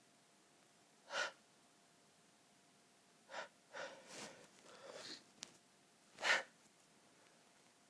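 A person's sneezing fit: a sharp sneeze about a second in, a run of catching, gasping in-breaths, then a louder sneeze a little after six seconds.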